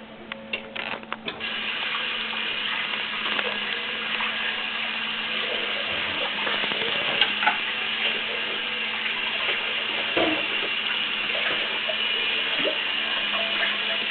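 A few light clinks, then from about a second and a half in, a steady hiss of running water like a kitchen tap, with a few faint knocks over it.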